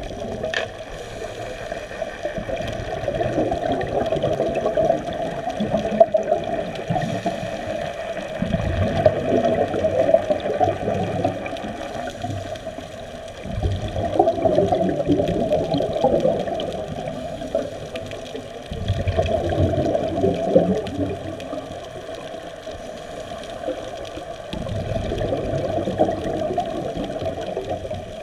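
Scuba diver's exhaled air bubbling and gurgling out of the regulator underwater, in muffled surges about every five or six seconds with quieter breathing gaps between.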